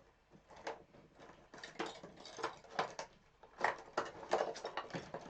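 Craft materials being handled on a work surface: irregular light taps, clicks and rustles, busier after the first second or so.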